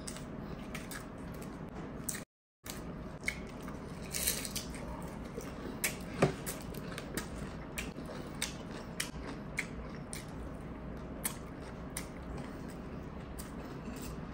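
Close-miked chewing and biting of putok, a Filipino bread roll with a hard sugar crust, with scattered sharp crunches and mouth clicks, the loudest about six seconds in. The sound cuts out completely for a moment a little over two seconds in.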